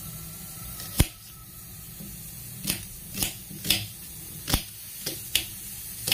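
Kitchen knife cutting a red onion straight on a granite countertop: a run of sharp, irregular knocks as the blade goes through and strikes the stone, about seven in all, the loudest about a second in.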